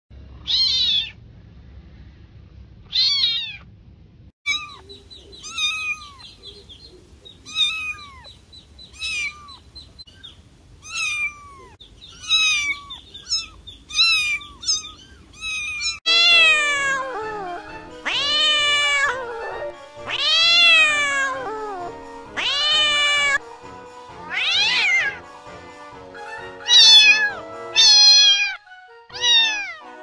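Cats and kittens meowing, one call after another. Short mews come about every second or so, then from about halfway the meows are longer and fuller, every couple of seconds.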